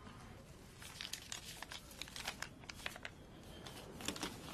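Sheets of paper rustling and crinkling as they are handled and shuffled on a desk: a quick, irregular run of short rustles starting about a second in.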